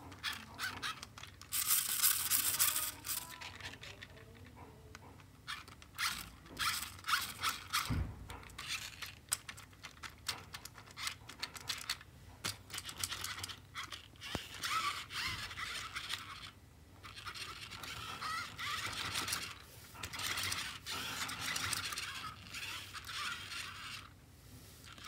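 Scraping, rustling and clicking as a plastic RC rock-crawler toy truck is picked up, turned over and handled, coming in irregular bursts.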